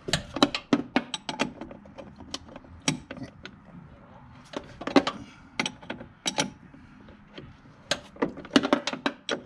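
A small metal wrench clicking in short, irregular clusters as it works the upper nut off the front shock absorber's shaft on a 2000 C5 Corvette.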